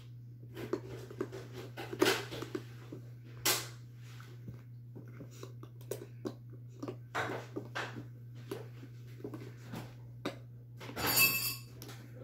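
Puppy chewing a Kong Squeezz Crackle Bone: irregular crunchy crackles and clicks as its teeth squeeze the toy, with a longer crackling burst near the end.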